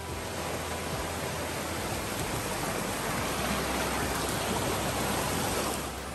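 Small forest stream rushing over rocks, a steady rush that grows slowly louder and then drops suddenly near the end.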